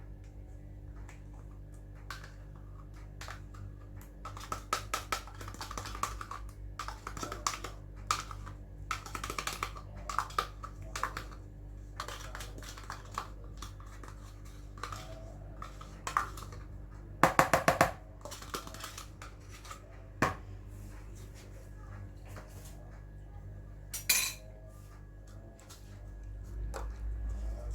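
A spoon clinking and scraping against a mixing bowl while cheesecake ingredients are added and stirred, in scattered taps with a quick run of sharp clicks partway through.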